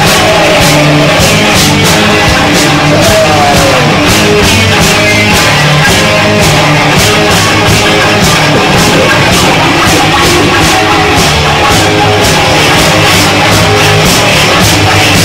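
Live punk-metal band playing loud and without a break: distorted electric guitar over a steady, driving drum beat.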